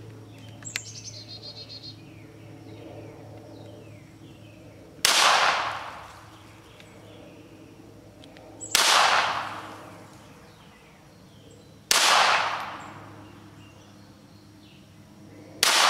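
.22 LR semi-automatic pistol firing Federal Gold Medal Target rounds: four single shots, 3 to 4 seconds apart, each with a short echoing tail. A small click comes shortly before the first shot.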